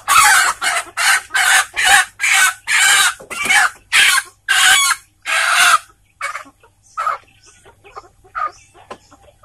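A kampung chicken squawking in alarm as it is grabbed and held by hand: a quick run of loud squawks, about two a second, for the first six seconds, then a few fainter calls.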